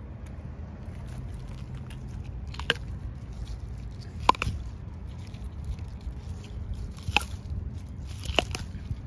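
Young Japanese knotweed stems snapped off by hand: several separate crisp snaps, the loudest about four seconds in, and two in quick succession near the end.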